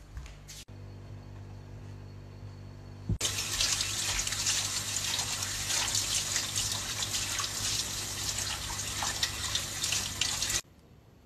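Kitchen tap running hard, water splashing into the sink. It starts suddenly about three seconds in and stops abruptly near the end, over a low steady hum.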